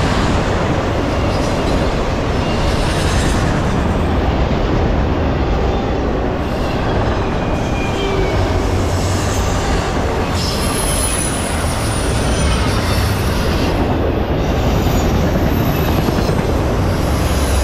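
Empty autorack freight cars rolling past at speed: a steady loud rumble of steel wheels on rail. Thin high wheel squeals come in during the second half.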